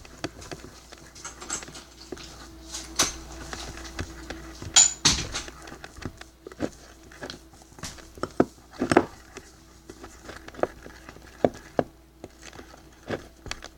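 A stirring stick tapping and scraping irregularly against a container while runny slime is mixed, in sharp clicks a few per second, with louder knocks about five and nine seconds in.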